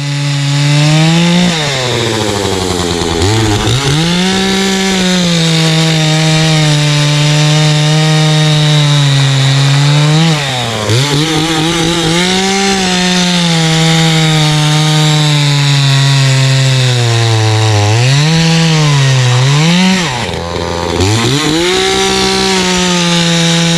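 Gas chainsaw cutting through a felled tree trunk, running at high revs. Its pitch sags several times as the chain loads up in the cut, deepest and twice in quick succession near the end, then climbs back to full speed.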